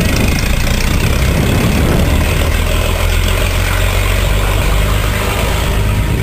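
A heavy vehicle engine running with a steady low rumble that grows somewhat stronger about halfway through.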